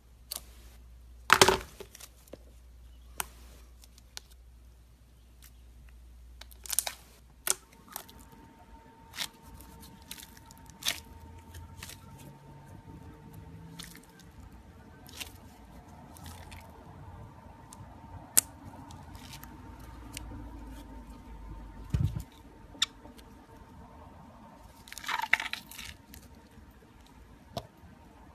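Scissors snipping through the rubber skin of slime-filled stress balls, and the slime squishing as it is squeezed and pulled out: scattered short snips, cracks and squelches, the loudest about a second and a half in and a crackly run near the end. A faint steady tone runs through the middle.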